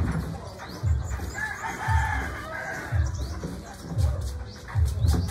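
A rooster crowing once, about a second long, about a second and a half in. Under it, regular low thuds about once a second.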